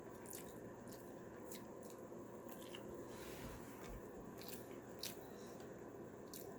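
Faint eating sounds: irregular soft clicks and smacks of chewing.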